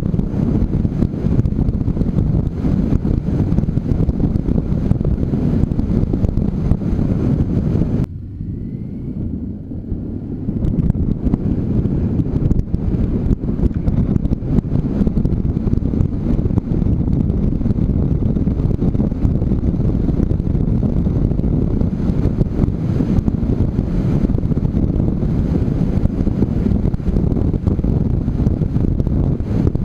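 Rushing wind on the microphone of a motorcycle-mounted camera at road speed, low and dense, with the bike running beneath it. About eight seconds in the noise suddenly drops and thins out, then returns about two seconds later.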